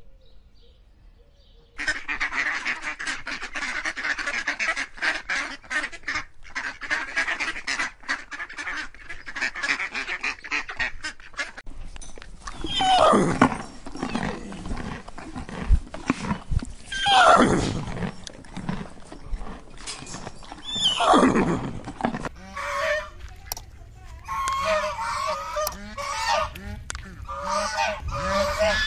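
A sequence of animal calls. About two seconds in, a dense chatter of many overlapping calls starts and runs for some ten seconds. Then a horse whinnies three times, each neigh falling from high to low, and near the end greylag geese honk over and over.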